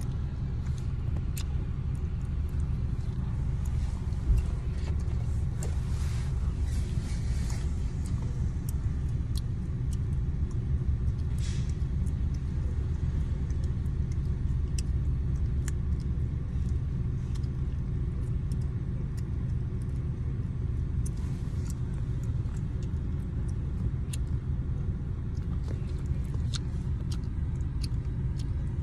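Steady low rumble of road and engine noise inside a moving car's cabin, with scattered faint clicks and a few brief hisses.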